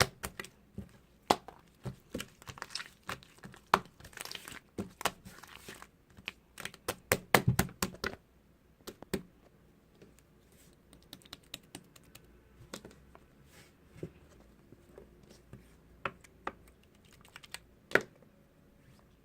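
Hands working a slime: a run of irregular sharp clicks and crackles, dense for the first eight seconds or so and sparser after.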